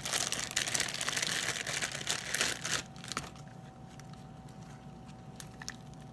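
Purple glitter slime being squished and stretched by hand, giving a dense crackling, crinkly sound for the first three seconds or so, then quieter with a few small clicks.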